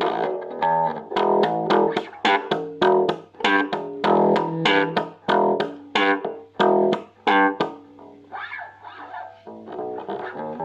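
Boston electric bass guitar played slap-style through a cheap small combo amp: quick, sharp-attacked notes several a second, lighter and sparser near the end, with a steady low hum from the amp underneath.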